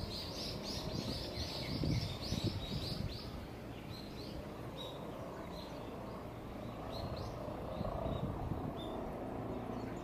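Small bird chirping: a quick run of short high notes in the first three seconds, then scattered single chirps, over a steady low background hum.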